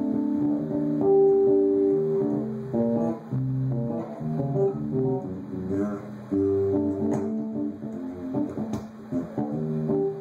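Bass guitar played through a 12-inch bass cabinet loaded with an RCF 12G301 ceramic-magnet woofer: a run of plucked notes, some sounded together as chords.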